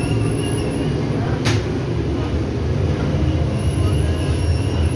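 Machinery of an automated flatbread production line running: a steady mechanical rumble with a strong low hum from the conveyors and dough-handling machines. A single sharp click comes about a second and a half in, and the low hum grows stronger near the end.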